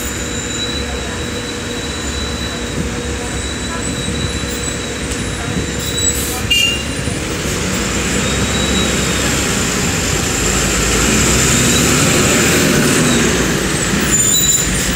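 City bus engine running at a bus stop, with a short clatter about six seconds in. The engine noise grows louder over the second half as a bus moves.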